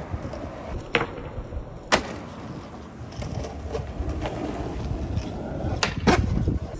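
Skateboard rolling with a steady low rumble from the wheels, broken by sharp clacks about one and two seconds in and twice close together near the end.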